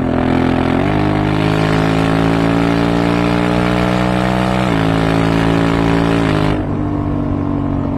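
Honda Africa Twin 1100's parallel-twin engine and exhaust pulling hard under acceleration, its pitch rising through each gear and dropping at three upshifts: about a second in, just before five seconds and around six and a half seconds. After the last shift the note holds steady.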